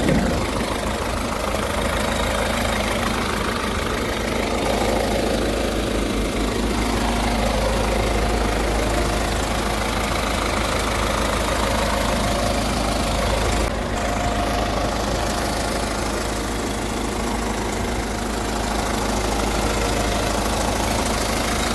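A 2014 Hyundai Tucson's CRDi 16-valve common-rail diesel engine idling steadily, heard with the hood open. There is a single short click about fourteen seconds in.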